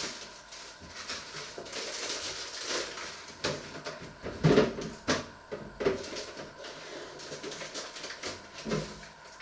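Kitchen clatter from things being handled at a counter: a handful of scattered knocks and bumps, the loudest about halfway through, over a faint hiss.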